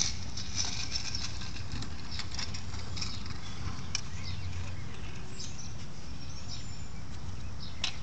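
Outdoor ambience: scattered light clicks and taps over a steady low rumble, with a few short high chirps in the second half.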